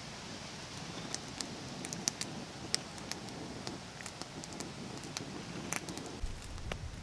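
Knife cutting a peeled tomato in a wooden bowl: scattered small clicks and taps of the blade against the bowl. A low rumble comes in near the end.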